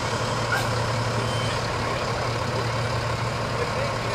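Fire engine idling close by: a loud, steady engine drone with a low hum and a constant whine above it.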